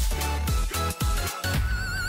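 Electronic dance music with a steady kick-drum beat of about two strokes a second; near the end a held synth note with a wavering pitch comes in.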